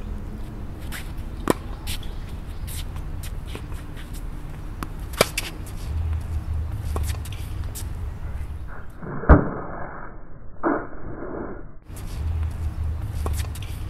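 Tennis balls struck by rackets in a rally: sharp pops every few seconds, the loudest about nine seconds in, followed by a softer knock, over a low background rumble.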